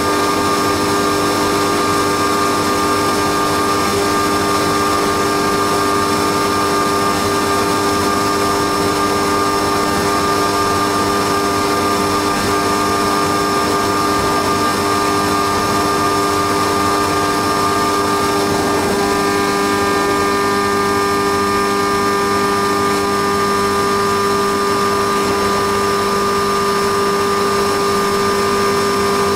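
Haas CNC milling machine cutting a cam on a rotary fourth axis: a steady spindle and cutting whine made of several constant tones over a hiss, which change pitch about two-thirds of the way through.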